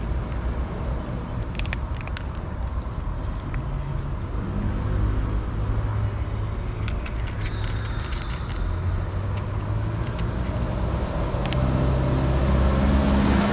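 Low engine rumble from a motor vehicle that grows louder over the last couple of seconds, with a few faint crunching clicks of a kitten chewing dry cat food.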